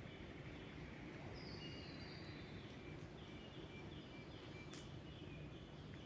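Faint bird calls in runs of short, high, even-pitched notes over steady low background noise, with a single sharp click a little before the end.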